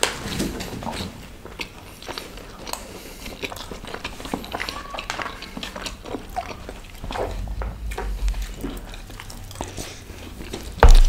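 Close-miked eating sounds: chewing and wet mouth noises with scattered small clicks, as rice and curry are eaten by hand and with a spoon. A single loud, low thump comes near the end.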